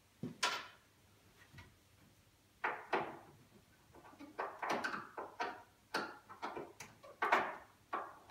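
A solid pine wardrobe door being lifted and fitted onto its hinges: a series of irregular wooden knocks, scrapes and short creaks as it is worked into place at the top hinge.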